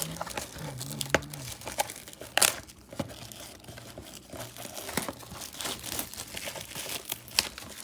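Trading card packaging being handled and opened: wrapping crinkling and tearing, with many sharp crackles and clicks.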